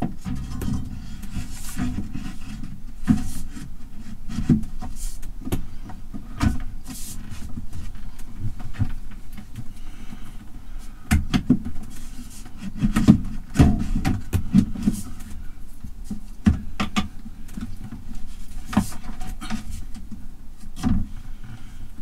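Irregular knocks, bumps and clicks of a built-in microwave oven being handled and pushed back into its cabinet housing, thickest about halfway through.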